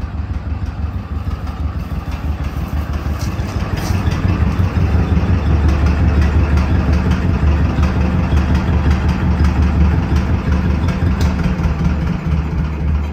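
John Deere 420C crawler tractor's two-cylinder engine idling with a fast, even putter. It gets louder about four seconds in and drops back near the end, inside a steel shipping container.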